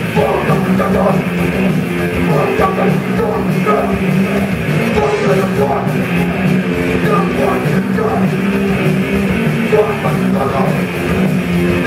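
Rock band playing live and loud: electric guitar and drum kit driving a steady fast song, with a singer's vocals over it.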